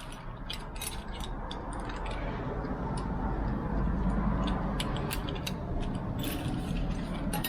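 Irregular metallic clicks and rattles as a lockset's door knob is worked off with a knob removal tool, over a steady low rumble.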